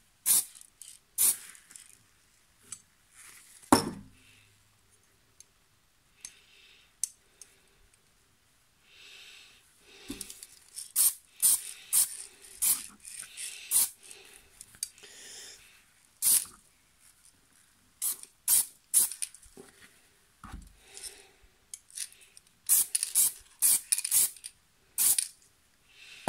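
Aerosol spray can of white paint sprayed in many short hissing puffs with pauses between them, some faint and some loud. A sharp click about four seconds in.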